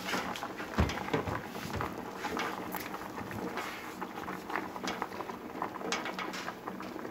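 A pot of seafood stew bubbling on a gas stove, with scattered small clicks and pops. There are a few soft footsteps on a wooden floor about a second in.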